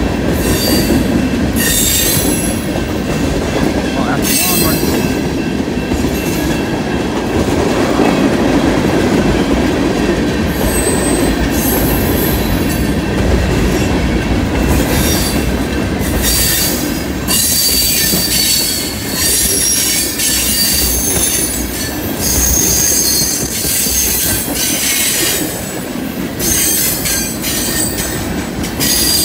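Freight train cars rolling past close by: a steady heavy rumble and clatter of wheels on rail. High wheel squeal comes and goes, most often in the second half.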